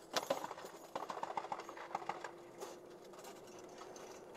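Sharp clicks and light rattling of gear being handled inside a Humvee gun turret, over a faint steady hum that fades out about halfway through.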